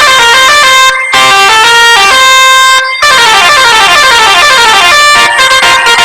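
Telolet musical bus horn playing a fast tune, its notes stepping up and down, with a quick run of falling notes in the middle and short breaks about one and three seconds in.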